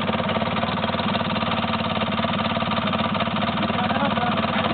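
Quad bike (ATV) engine idling steadily.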